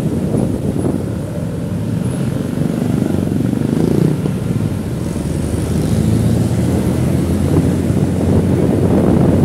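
Wind buffeting the microphone during a ride in city traffic, a steady low rumble, with a vehicle engine running underneath that swells a little near the middle.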